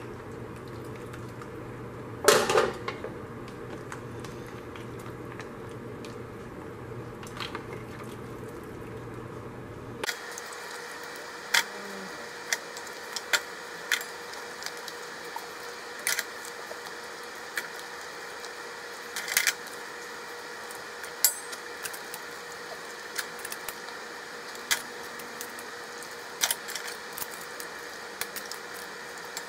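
Serving utensils knocking and scraping against a metal stockpot and lid as seafood is lifted out of the broth: one loud clank about two seconds in, then scattered short, sharp clicks and clatters over a steady background hiss.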